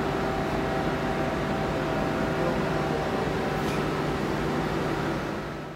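Steady hum of powered industrial machinery: several constant tones over a low rumble and a hiss, fading out right at the end.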